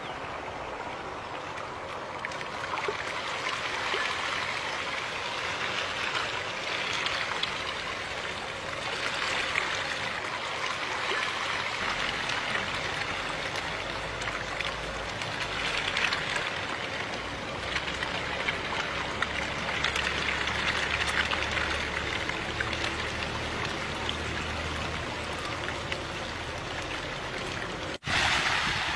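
Water splashing and churning as a dense crowd of farmed fish thrashes at the pond surface for feed, swelling and easing every few seconds.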